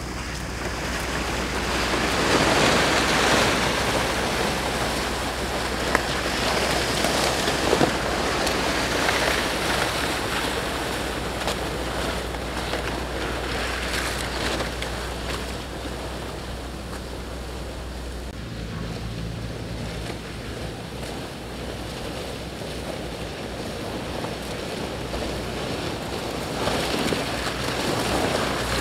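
Wind rushing through the forest and over the microphone, swelling in gusts. Near the end comes the rustle of palm fronds dragged and carried over dry leaf litter.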